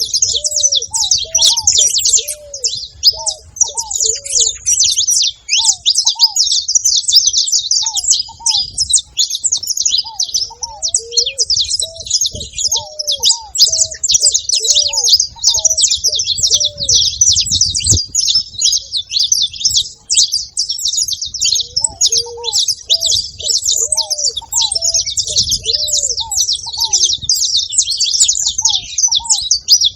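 Saffron finch (canário-da-terra) singing and chirping without pause in a fast, high-pitched jumble of notes. A lower series of short, arched notes comes in runs several times underneath.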